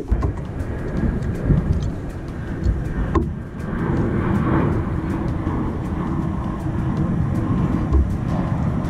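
Jet airliner passing overhead: a steady rumble that swells in about three and a half seconds in and holds. Before it come a few sharp knocks of a large fish being handled in a plastic kayak.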